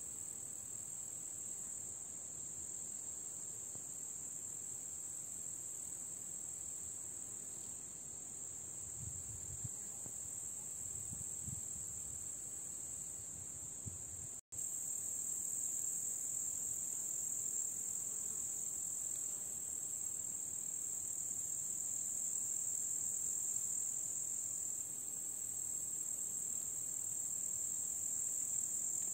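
Crickets in summer grass chirring as a steady, continuous high-pitched trill. It cuts out for an instant about halfway through and comes back slightly louder.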